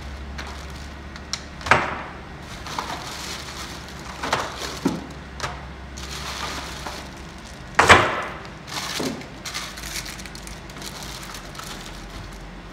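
Rummaging in a tool chest drawer and handling packaged parts: rustling plastic packaging and a series of sharp knocks and clatters, the loudest nearly eight seconds in.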